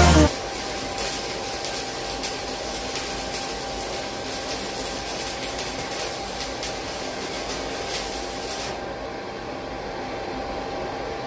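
A song cuts off at the start, leaving a steady mechanical whir with a faint steady tone in it; its high hiss drops away about nine seconds in.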